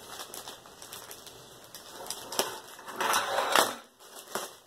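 Clear plastic bag around a rolled canvas crinkling and crackling as hands tug and tear at it, in irregular bursts, louder about three seconds in.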